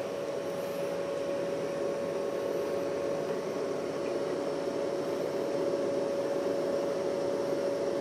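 Compressor of an Alpicool portable car fridge (the unbranded, Chinese-made German-technology type) running, a steady hum with one clear held tone over an even rushing noise.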